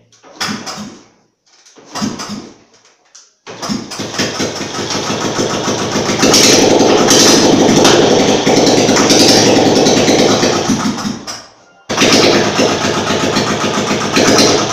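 Royal Enfield Classic's rebuilt single-cylinder UCE engine being started with no silencer fitted: two short tries, then it catches about three and a half seconds in and runs loud and open-piped. The noise dips off briefly near the end and comes back sharply. The harsh open-exhaust sound is because the silencer is not yet fitted on the freshly rebuilt engine.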